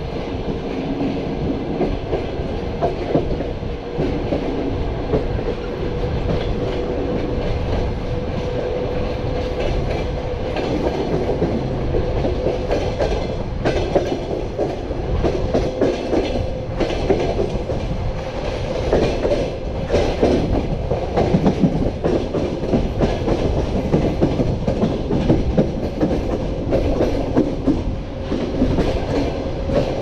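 Passenger train compartment coach running on the track, heard from its open window: a steady rolling rumble with the clickety-clack of wheels over rail joints and a faint steady tone.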